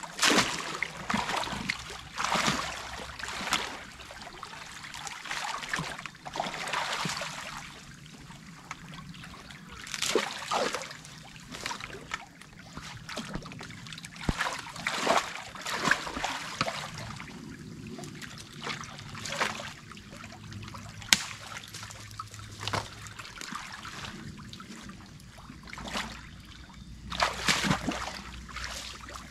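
Creek water trickling and running through a breached beaver dam, with splashes and sloshes at uneven intervals of one to a few seconds.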